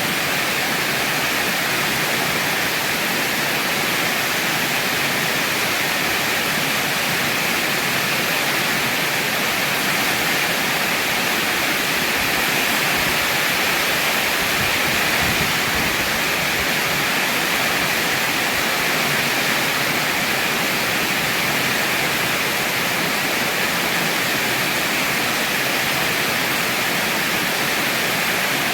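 Heavy rain falling steadily: a dense, even hiss with no thunder.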